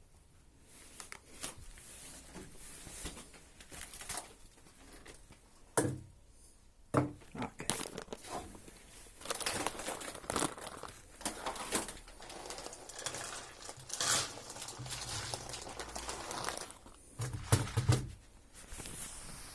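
Plastic crinkling and rustling with scattered knocks and clatters, as cut-down plastic jugs used as pigeon feeders are handled.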